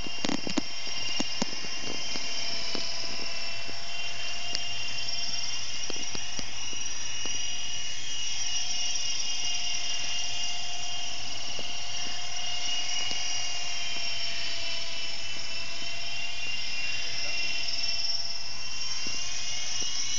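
Small radio-controlled helicopter flying, its motor and rotor giving a steady high-pitched whine that drifts slightly up and down in pitch. A few sharp clicks in the first couple of seconds.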